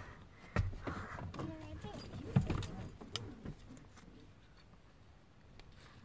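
Handling noise of someone moving about inside a car right next to the phone: rustling and a run of small clicks and knocks, the loudest about half a second and two and a half seconds in. It falls away to a faint background from about halfway.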